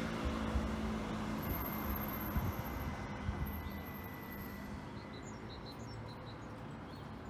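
Street traffic noise dying away after a passing car, leaving a steady distant hum. Faint bird chirps come in from about five seconds on.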